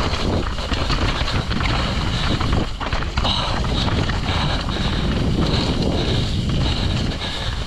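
Mountain bike descending a rough trail at speed: wind rushes over the microphone while the tyres roll on dirt and the bike rattles and knocks over the bumps.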